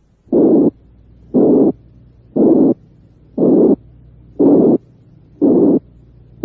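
Demonstration heart murmur: a narrow band of blowing noise switched on and off about once a second, six short bursts of about a third of a second each. It is a high-pitched blowing murmur of the kind heard in mitral or aortic regurgitation that is not too intense.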